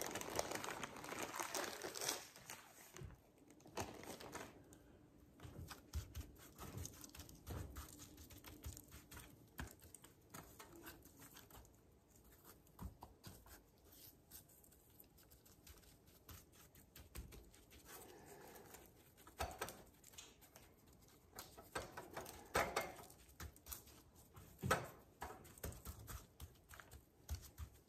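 Plastic bag of brown sugar rustling as sugar is poured onto ribs in a stainless steel pan, followed by faint scattered taps, pats and rubbing as a gloved hand works the sugar into the meat, with a few louder pats near the end.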